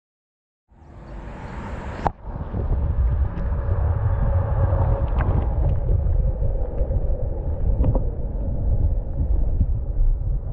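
After a moment of dead silence, a steady low rumble of wind buffeting an action camera's microphone, with a few light knocks, one sharp knock about two seconds in.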